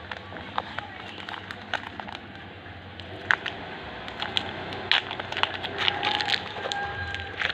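Irregular small clicks and crackles, like objects or packaging being handled, over a steady background hiss; the clicks come thicker in the second half.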